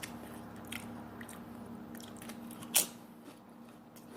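Close-miked chewing and mouth sounds of a person eating, small wet clicks over a low steady hum, with one louder sharp click about three seconds in.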